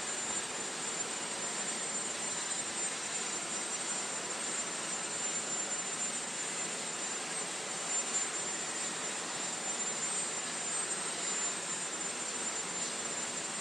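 Steady rushing noise of an idling aircraft turbine, with a thin, unchanging high whine.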